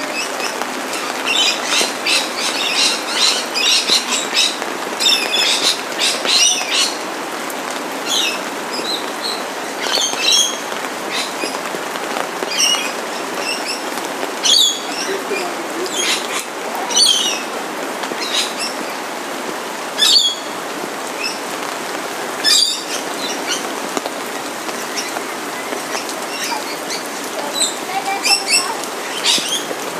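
Steady rain falling, with birds chirping over it in short, sharp high calls. The calls come thick and fast for the first several seconds, then one every two or three seconds, with a few more near the end.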